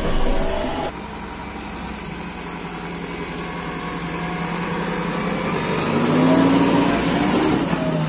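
JCB 3DX backhoe loader's diesel engine running as it works, heard from the cab at first and then from outside after an abrupt change about a second in. The engine revs up under load around six seconds in, rising in pitch and loudest there, then eases off near the end.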